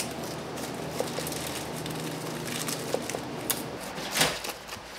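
Food-prep sounds at a street-food counter: a steady crackly hiss with scattered clicks and taps of utensils, and a short loud whoosh about four seconds in, after which the hiss drops.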